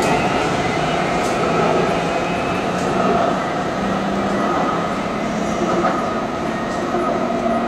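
Taipei Metro C301 electric multiple unit accelerating away from the platform. Its GTO-VVVF traction inverter whines in several steady tones over the rumble of the wheels, slowly fading as it draws off.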